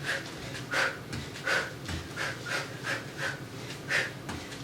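A woman's sharp, rhythmic exhalations in time with fast kickboxing punches and knee strikes, about two to three short breaths a second: hard breathing during a high-intensity cardio interval.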